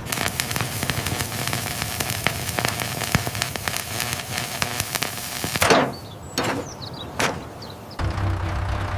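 Cartoon sound effects: a dense crackling clatter of rapid clicks for about five seconds, then three quick whooshes, with music starting near the end.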